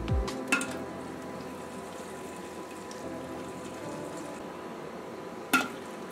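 Red-hot steel auger flight quenched in used oil, sizzling and bubbling steadily as it hardens. A sharp click sounds about half a second in, and a louder one near the end.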